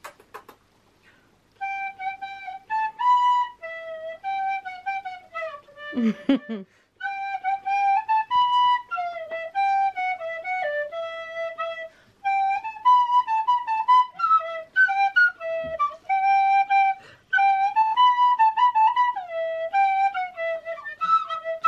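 A small end-blown fipple flute playing a simple melody of short, mostly stepwise notes, phrase after phrase with brief gaps between them. A short lower-pitched sliding sound breaks in about six seconds in.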